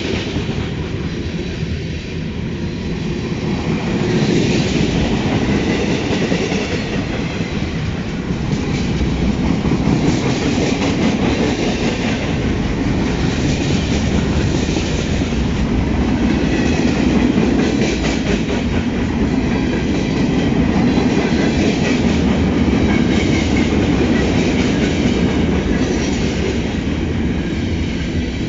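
Ferromex freight train cars rolling past: a steady, loud rumble with wheels clacking over the rail joints every second or two.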